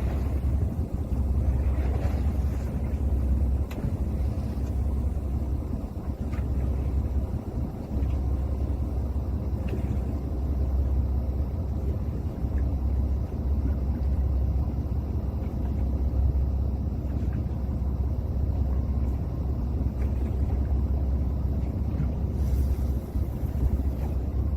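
Steady low rumble of wind buffeting the microphone aboard a small fishing boat at sea.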